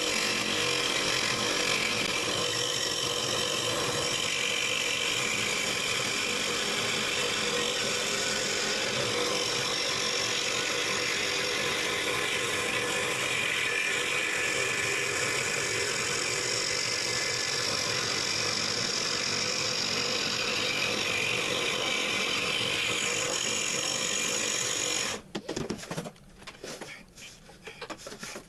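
Scroll saw running steadily and cutting wood, switched off abruptly about 25 seconds in, followed by a few light knocks and clicks.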